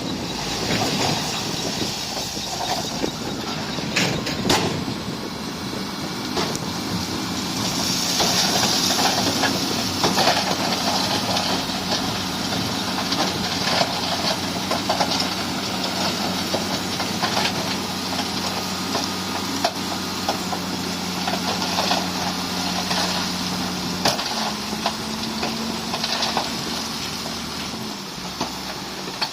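Heavy earthmoving machine's diesel engine running steadily, with scattered clanks and knocks from the machine and material. Its pitch steps up slightly about 24 seconds in.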